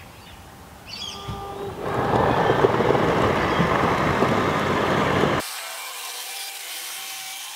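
Electric drive of a Lippert in-wall slide-out room running as the room extends from the side of the converted coach: a steady mechanical running noise that builds over the first couple of seconds. About two-thirds of the way through it changes abruptly to a thinner, quieter hiss.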